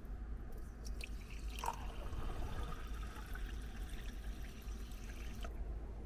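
Liquid poured from a plastic bottle into a glass tumbler, splashing and filling the glass, with a few sharp clicks near the start; the pour stops abruptly near the end.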